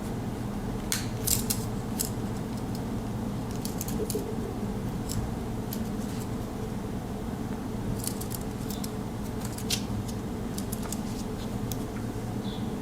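Victorinox Angler Swiss Army knife being worked open with one hand: a scattered series of sharp metallic clicks from the main blade and its backspring, over a steady low hum.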